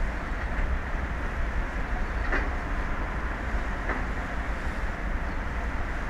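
Steady wind rumbling on the microphone over the rush of the open sea, with two faint knocks a second and a half apart near the middle.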